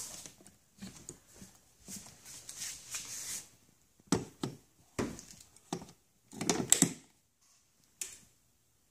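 A plastic J1772 charging connector being handled and pushed into an electric car's charge port: faint handling noise, then a string of sharp plastic clicks and knocks, most of them in a cluster about six and a half seconds in, as the handle seats and latches.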